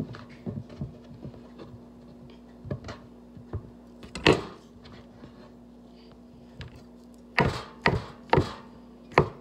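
Knife work on a cutting board: scattered light knocks and scrapes, with one louder knock about four seconds in, then steady chopping near the end, the knife striking the board about twice a second. A faint steady hum runs underneath.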